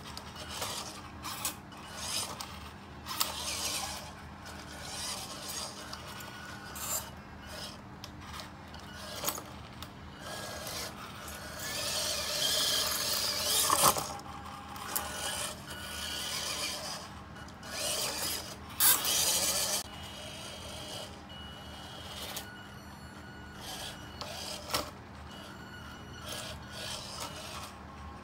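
Drive motor and gears of a 1/16-scale RC van on a WPL crawler chassis whining in short stop-and-go bursts as it is driven, with its rubber tyres rubbing and scraping as they climb over a stack of foam rings. It is louder for a couple of stretches, around the middle and about two-thirds through.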